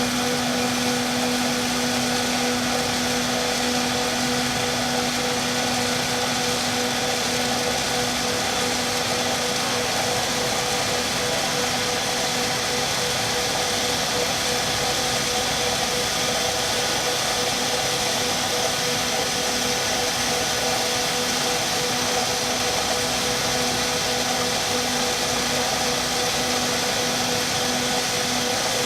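Industrial tube ice machine running steadily on test: an even mechanical drone with a constant low hum.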